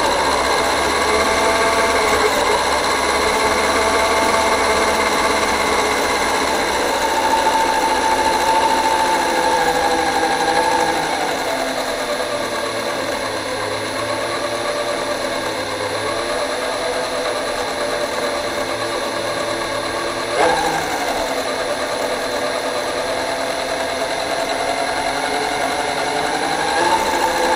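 Brushless 4350kv electric motor and gear drivetrain of an RC truck whining, the pitch rising and falling with throttle, heard from on board. It is a little quieter for a stretch in the middle, with a single sharp knock about twenty seconds in.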